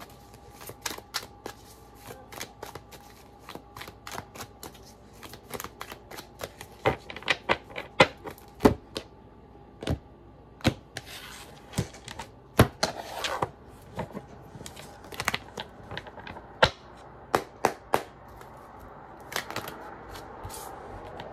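A tarot deck handled by hand: sharp, irregular clicks and taps as cards are cut, flicked and laid down on a desk, coming several a second at times. A few short rustles of shuffling break in between.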